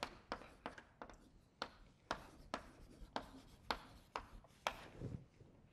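Chalk writing on a blackboard: a faint, irregular run of short chalk strokes and taps, about three or four a second, as the letters go down.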